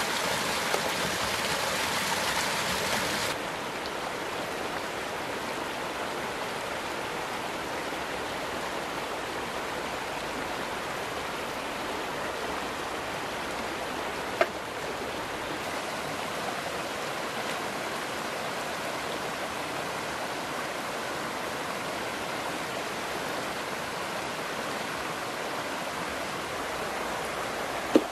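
Steady rushing of running water, a little louder for the first three seconds before dropping to an even level. A single sharp click sounds about halfway through, and another just before the end.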